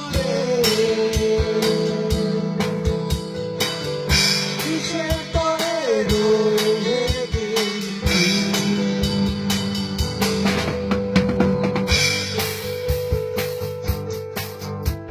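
A rock band jamming: a drum kit keeps a steady beat under a guitar lead line whose notes bend and slide, near the start and again about five to seven seconds in.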